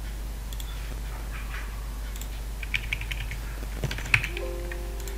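A few scattered light clicks of a computer mouse and keyboard, over a steady low hum.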